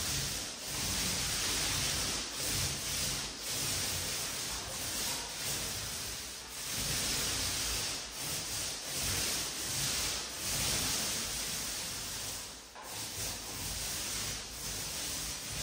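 Paint roller being rolled over a wall or ceiling, a sticky hissing rub that swells and fades with each back-and-forth stroke, broken by brief pauses to reload.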